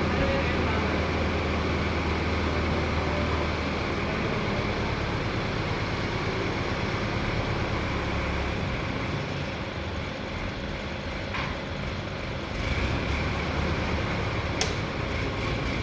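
Heavy diesel engine of a mobile crane running steadily under load, its low rumble shifting in level a couple of times, with a sharp click near the end.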